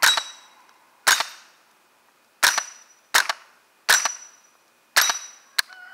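Six .22LR shots from an AR-15 fitted with a CMMG Bravo 22LR drop-in bolt conversion, firing subsonic rounds at an uneven pace about a second apart as the magazine is run out. A small click comes near the end.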